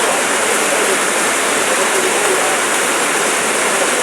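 Heavy rain falling, a steady even hiss with no letup.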